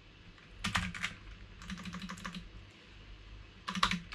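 Computer keyboard typing in three short bursts of rapid keystrokes with brief pauses between them.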